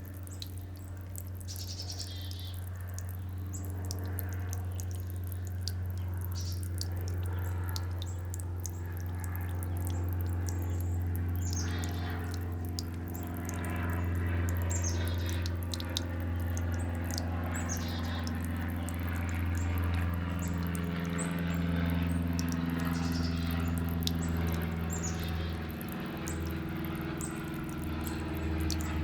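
Small birds chirping at a backyard water fountain: many short, high calls that fall in pitch, in scattered bouts. Underneath, fountain water trickles over a steady low hum.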